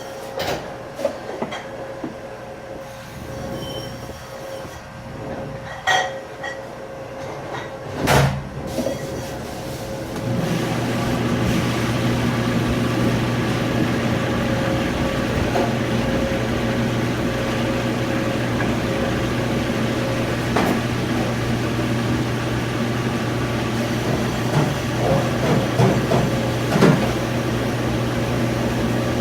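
Dish-pit noise in a restaurant kitchen: a few sharp clanks of dishes, then about ten seconds in a loud, steady mechanical running noise with a low hum starts up and carries on.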